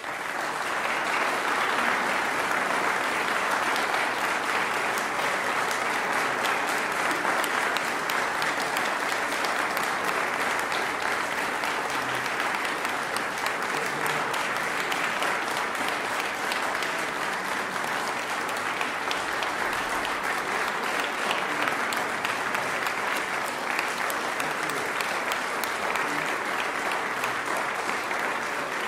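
Audience applauding as the music ends: clapping that breaks out suddenly after a brief silence and carries on steadily.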